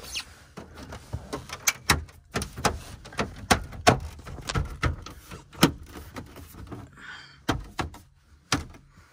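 Replacement top dash panel of a 2002 Chevy Avalanche being pressed down by hand into its clips: an irregular run of sharp plastic clicks and knocks, thinning out in the last couple of seconds.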